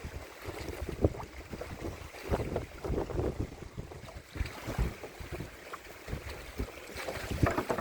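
Strong wind gusting against the microphone, with irregular low buffeting rumbles.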